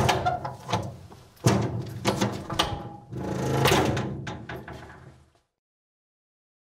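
Heavy door creaking with several knocks and thuds, its low creak swelling between the impacts, breaking off abruptly about five seconds in.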